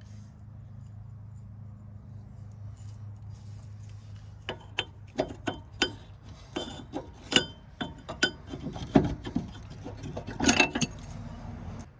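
Sharp metallic clinks and knocks of brake parts being handled, a quick irregular series from about four to eleven seconds in, over a steady low hum.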